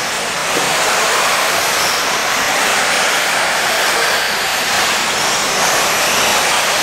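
Electric 1/10-scale off-road RC buggies racing on a dirt track: a steady hiss of tyres and drivetrains, with the faint high whine of the motors coming and going.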